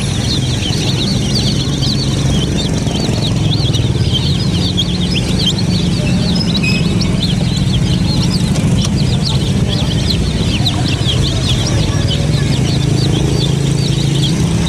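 A flock of domestic chicks peeping constantly, many short high cheeps overlapping one another, over a steady low hum.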